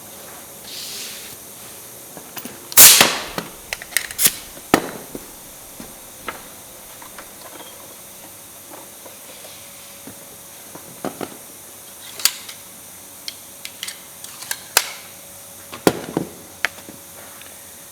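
Workshop knocks and clicks: one loud, sharp crack about three seconds in, then scattered lighter knocks and clicks, as of pieces of wood and tools being handled on a bench.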